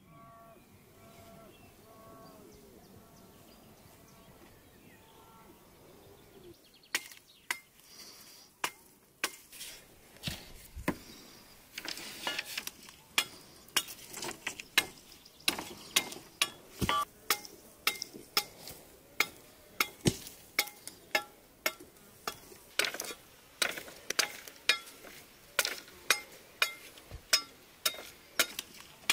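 A bird calling with a short repeated note, then from about seven seconds in a long run of sharp cracks and knocks, about two a second by the middle, from a billhook cutting into a wooden pole and a dog crunching on a bone.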